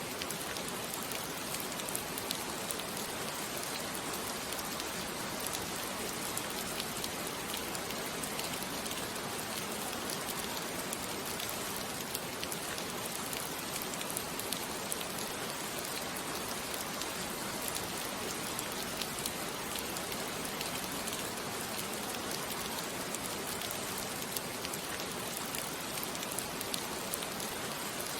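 Steady rain falling on a surface, an even hiss dotted with many small drop ticks, with no change in strength.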